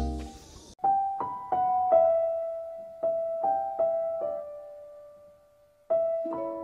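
Background music: a beat-driven track cuts off just under a second in, and a slow piano melody follows, its single notes and small chords struck and left to ring out.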